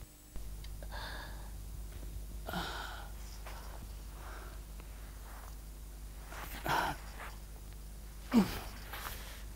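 A man's labored breathing and sighs, with two short groans near the end, the last falling in pitch, over a steady low hum.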